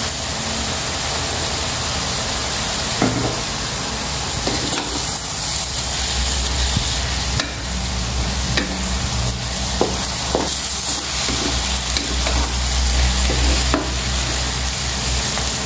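Yellow noodles and beef sizzling in a hot wok while a wooden spatula stirs and tosses them, with occasional knocks and scrapes of the spatula against the pan.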